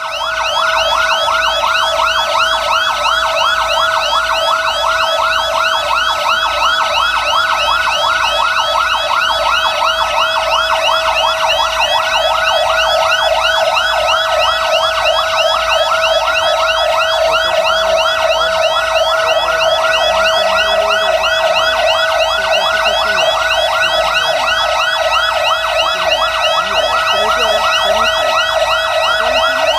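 Fire trucks' electronic sirens sounding together, loud and continuous: a fast, evenly repeating warble over a steady held tone.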